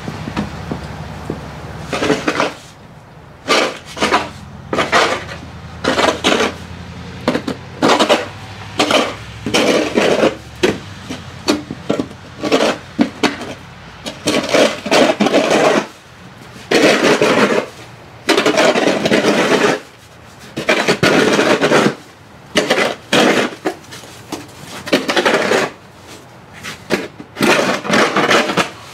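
Plastic snow shovel scraping a thin layer of wet snow off a paved walkway, in many repeated strokes, some short and some longer pushes. The scraping starts about two seconds in.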